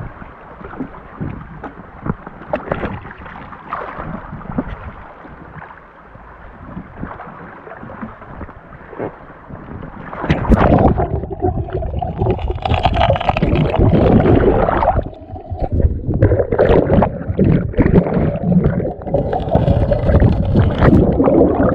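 Creek water splashing and gurgling right against a camera held at the surface of a fast-flowing creek, with sharp splashes hitting the microphone. About ten seconds in it turns much louder and rougher as the camera dips into the rushing water and goes under.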